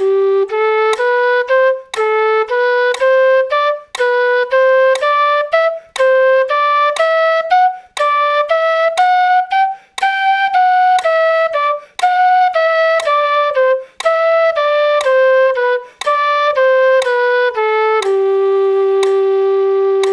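Quena (Andean notched end-blown flute) playing a four-note-group scale exercise in G, tongued notes at two to each click of a metronome set to 60 BPM. The notes climb to the upper G, come back down, and end on a long held low G.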